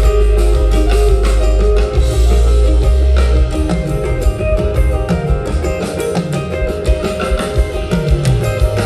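A rock band playing a live instrumental jam: electric guitar over a drum kit keeping a steady beat, with a deep bass note held for the first few seconds before the bass line starts moving.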